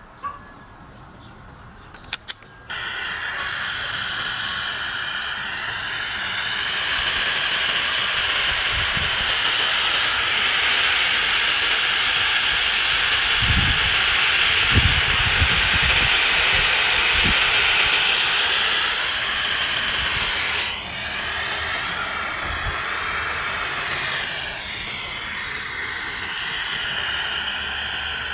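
Portable AM/FM cassette radio, rigged as a homemade metal detector, switched on with a click about two seconds in and then giving loud steady static hiss from its speaker while tuned between stations. The hiss shifts in tone twice in the second half, and a few low thumps come near the middle.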